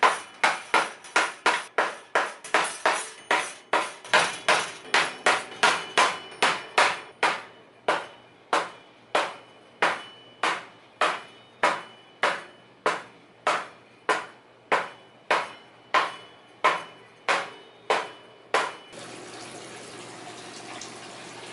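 Claw hammer tapping small brass nails through brass letters into a cedar board: a steady run of sharp taps, about two and a half a second at first, then slowing to under two a second. The tapping stops near the end, and a steady hiss follows.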